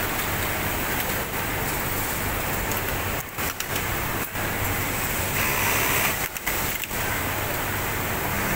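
Steady din of a garment factory sewing floor: many industrial sewing machines running, over a low machinery hum, with a brief louder hiss about five and a half seconds in.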